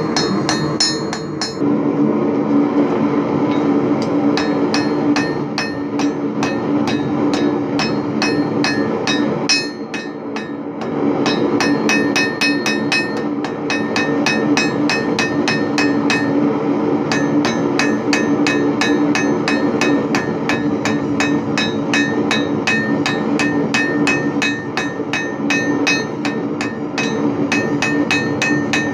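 Hand hammer striking hot steel held in tongs on an anvil in a quick, steady rhythm of about three blows a second, each blow ringing. There is a brief pause about ten seconds in. A steady hum runs underneath.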